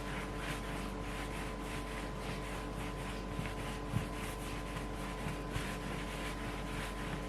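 Steady background hiss with a faint constant hum and a few soft taps, the clearest about four seconds in.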